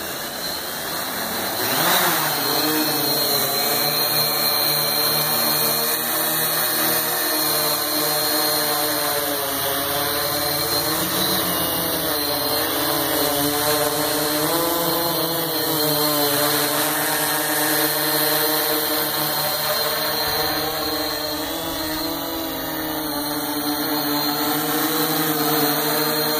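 Electric motors and propellers of a Kopter Krazy K-850 multirotor drone spinning up, rising in pitch and loudness over the first two seconds as it lifts off. It then hums steadily in flight, its pitch wavering up and down as the motors adjust.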